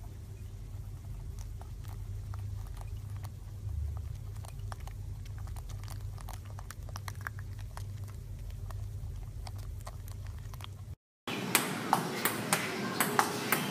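Table tennis ball clicking sharply off paddles and table in a quick rally, about two to three hits a second, starting after a short gap near the end. Before it, a low steady hum with faint scattered clicks.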